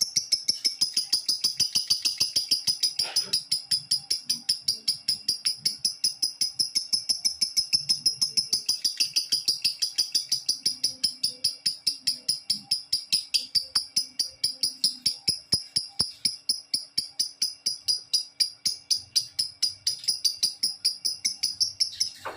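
Lovebird singing one long unbroken chattering song: sharp, high chirps repeated evenly, about six a second, without a pause, the sustained 'ngekek' song of a lovebird in full voice ('gacor').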